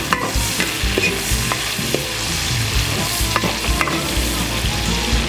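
Oil sizzling steadily as ginger, garlic, Sichuan peppercorns, chilies and small tomatoes are stir-fried, with scattered clicks and scrapes of the spatula against the pan.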